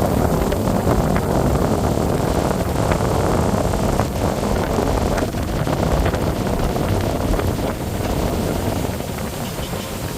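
A motorboat under way, heard as a steady, loud rush of wind buffeting the microphone together with water and engine noise, easing a little near the end.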